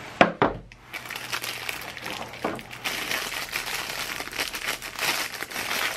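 A sharp knock just after the start, then clear plastic wrapping crinkling steadily as it is handled and pulled off a folding pocket knife.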